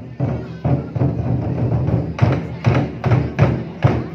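Lion dance drum and cymbals playing a steady, driving rhythm of repeated beats, with the cymbal clashes growing brighter and louder about halfway through.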